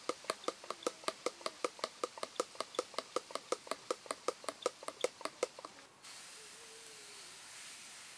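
A utensil beating rapidly against a bowl that rings with each stroke, an even clinking of about five strokes a second. It stops just before six seconds in and a steady hiss follows.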